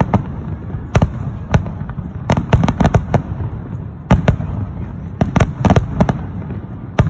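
Aerial fireworks bursting overhead: a rapid, irregular series of sharp bangs, several coming in quick clusters of three or four, over a steady low rumble from the display.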